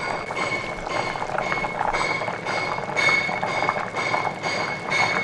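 Water-snail curry boiling hard in an open kadai, bubbling steadily. Over it runs a constant high-pitched whine and a regular pulse about twice a second.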